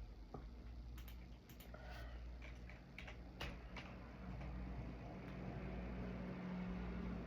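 Scattered computer keyboard keystrokes and clicks, bunched in the first half, over a steady low hum that grows slightly louder toward the end.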